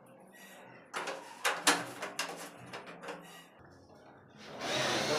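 Gypsum board being handled and fitted: a few sharp knocks and taps as the curved board strip is set against the ceiling fixture, then, near the end, a loud rough scraping or grating begins at the board's edge.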